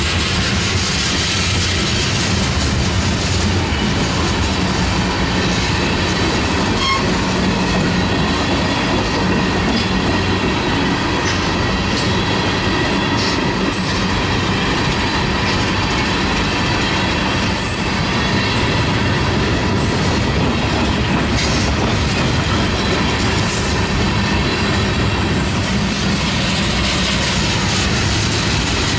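Freight train's tank cars and covered hopper cars rolling past: a steady, loud rumble of steel wheels on rail, with clicking over the rail joints and occasional sharp clanks.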